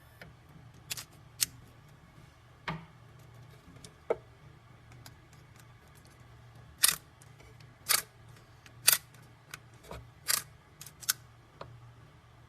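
About nine sharp clicks and light knocks at irregular intervals, with the loudest in the second half: a key and the key cutting machine's clamp parts being handled, not the machine cutting.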